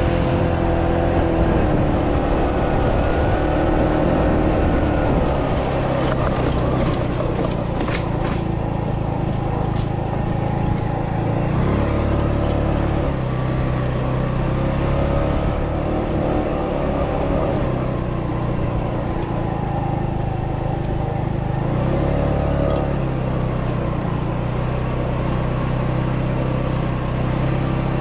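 Italika D125 mini scooter's 125cc engine running while riding, its pitch rising and falling gently with the throttle, over a heavy low rumble.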